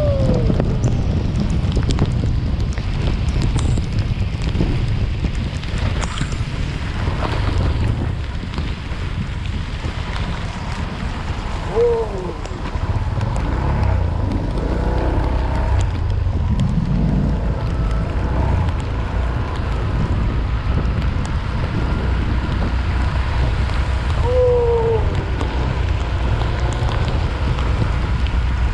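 Wind buffeting the microphone of a camera moving fast through heavy rain, a dense steady rumble mixed with the hiss of rain and wet road. A few short falling tones cut through it about twelve seconds in and again near twenty-five seconds.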